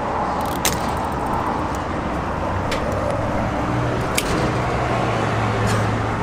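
Gasoline pump filling a truck's fuel tank through the nozzle: a steady rush of flow, with a low hum that comes in about halfway and about four sharp clicks spread through it.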